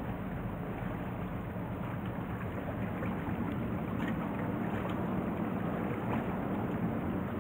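Steady low rumble of a Tarumizu car ferry's engines as it pulls away from the pier, with light lapping of calm water.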